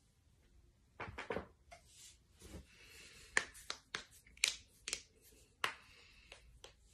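Joints cracking: a run of sharp, separate pops, most of them between about three and six seconds in, after a rougher cluster of sounds about a second in.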